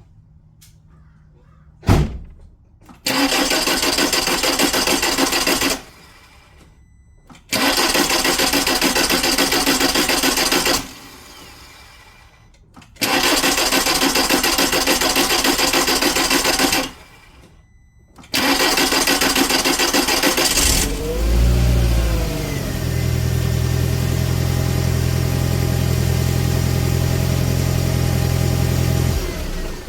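2001 VW Beetle's 1.8-litre turbo four-cylinder being cranked by its starter four times in a row, each a few seconds long, without firing at first. On the fourth try it catches with a short rev, then idles steadily until it cuts off near the end. The hard start comes from a faulty crankshaft position sensor sending an intermittent signal.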